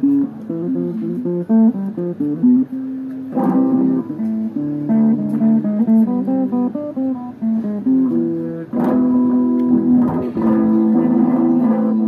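Guitar music: runs of plucked notes, with strummed chords about three and a half, nine and ten seconds in.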